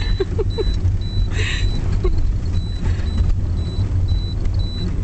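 Low, steady rumble of a taxi's engine and road noise heard from inside the moving car's cabin.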